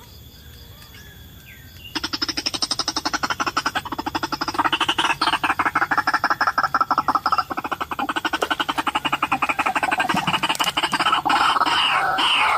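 White-breasted waterhen calling: a fast run of harsh, rapidly pulsed croaking notes starting about two seconds in, turning into louder, more varied calls near the end.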